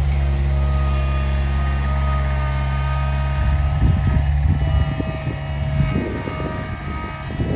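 John Deere 24A skid steer's engine running steadily. About halfway through, its note shifts and irregular crackling and rattling sets in over it.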